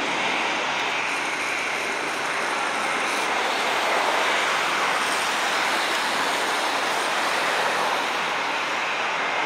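Twin jet engines of an Airbus A320-family airliner running steadily as it rolls along the runway: an even rushing noise with a faint high whine in it.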